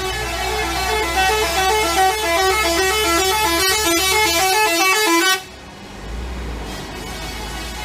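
Bus 'telolet' horn, the multi-tone musical horn of Indonesian buses, playing a rapid stepping tune of short notes. It cuts off suddenly about five seconds in, leaving a low engine rumble.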